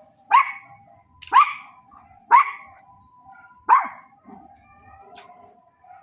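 A dog barking four times, sharp single barks about a second apart.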